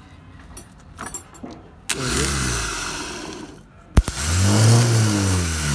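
Rebuilt Tata Ace starter motor bench-tested off the vehicle from battery leads: it whirs up and winds down about two seconds in, then a sharp spark snap as a lead touches the terminal and it spins up again, louder, and runs down. It turns freely after the rebuild.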